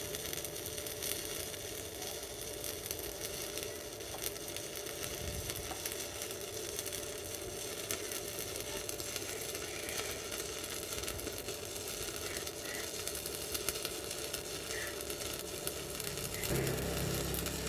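Stick-welding arc from a CTC-200T inverter welder burning a 4 mm electrode: a steady sizzling crackle. The arc runs smoothly without the rod sticking or the arc breaking, which the welder takes as a sign of good arc force compensation.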